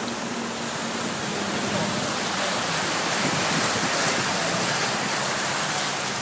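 A 4WD wading through floodwater: a steady rush of water against the vehicle, swelling a little in the middle, with the engine running low underneath.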